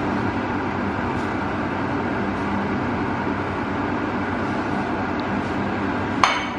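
Steady hum and rushing noise of a running machine. A plate clinks sharply near the end.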